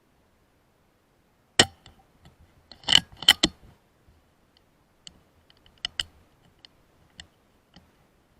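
A series of sharp clicks and knocks: a loud one about one and a half seconds in, a quick cluster of three about a second later, then fainter scattered ticks.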